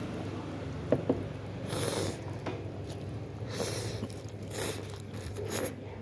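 Chopsticks stirring rice noodles and broth in a bowl: two quick clicks about a second in as they knock the bowl, then several short scraping and swishing noises.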